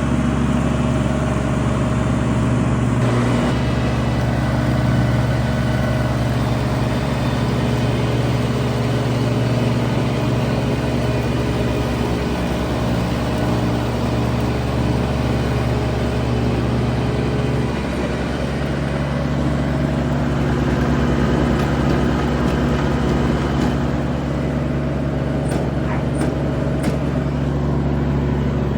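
Kubota G231 ride-on mower's diesel engine running steadily under mowing load, its note shifting slightly about 3 seconds in and again about 18 seconds in.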